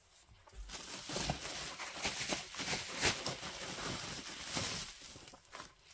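Plastic bubble wrap rustling and crinkling as it is pulled apart by hand, with many small crackles; it starts about half a second in and fades near the end.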